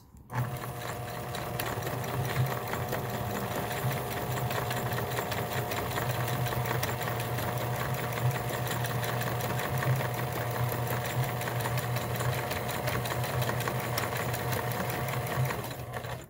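Kenmore Sensor Sew 70 electronic sewing machine running steadily, sewing a memorized combination of two decorative stitch patterns. It starts right away and stops near the end.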